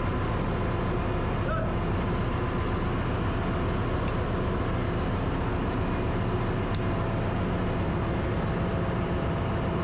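Steady drone of running machinery in a ship's engine room: a constant low hum with faint steady tones over it, unchanging throughout.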